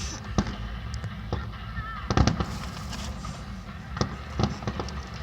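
Aerial fireworks going off in a string of about five sharp bangs at uneven intervals, the loudest about two seconds in.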